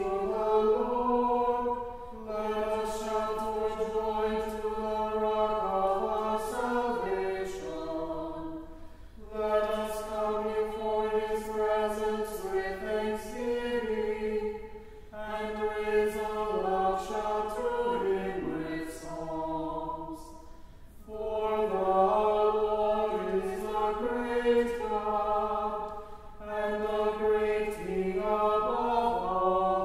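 Sung chant of a liturgical canticle: slow, held notes in phrases of about five to seven seconds, with short breaks between them.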